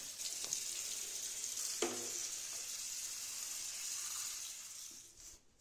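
Tap water running onto a plastic vacuum cleaner floor nozzle held in a sink, a steady splashing stream that fades out near the end. There is a single short knock about two seconds in.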